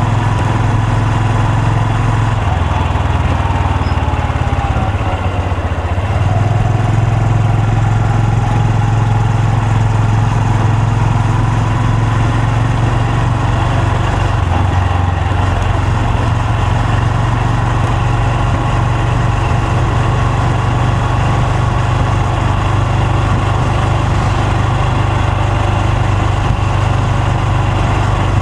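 Honda Super Cub C125's air-cooled single-cylinder four-stroke engine and exhaust running steadily, with a brief dip in engine note about five seconds in.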